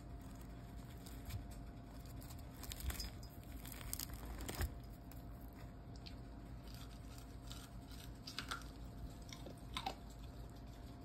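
Faint scattered crackles and clicks over a low steady hum and a faint steady tone.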